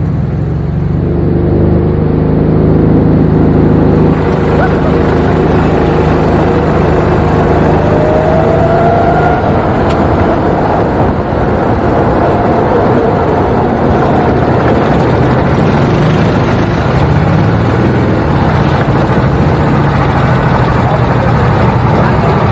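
Go-kart's small petrol engine running steadily under way, heard from on board with a rush of wind noise over it.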